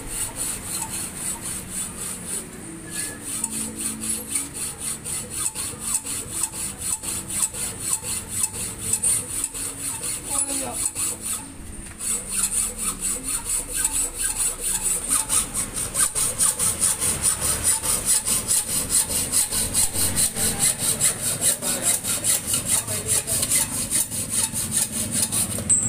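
Hacksaw cutting through the metal steerer tube of an old BMX fork in quick, even back-and-forth strokes. There is a short pause about twelve seconds in, and the strokes are louder after it.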